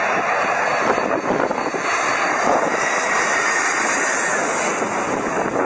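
Jet airliner engines passing close by, a loud steady rush of noise with a faint high whine about halfway through.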